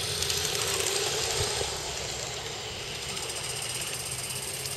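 Large-scale model steam locomotive running on its track, a steady hiss over a fast, even beat that slowly gets quieter.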